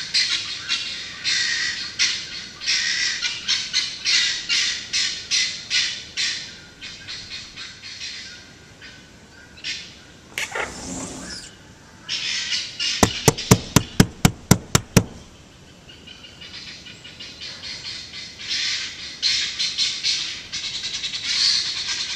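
Guinea fowl calling in rapid runs of repeated cackling notes, with lulls between the runs. About halfway through comes a brief noise, then a quick train of about nine sharp, loud clicks.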